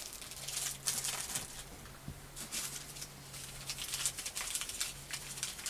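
Rustling and light clicking of small bike parts and their packaging being handled, over a faint low hum.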